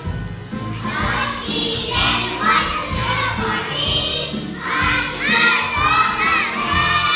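A group of young children singing loudly together over a backing music track, some voices close to shouting.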